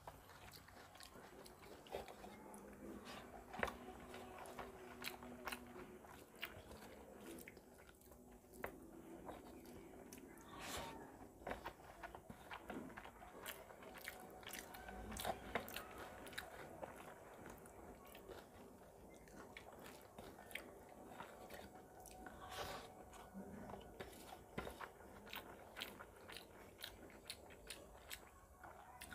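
Faint close-up eating sounds: fingers mixing and squishing rice with curry and mashed potato on a metal plate, and chewing with many small wet clicks and smacks of the mouth.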